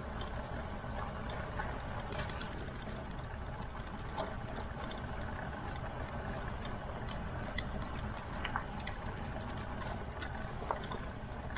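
KRN motorcycle under way, heard from the rider's microphone: steady engine and wind noise with a few faint ticks scattered through it.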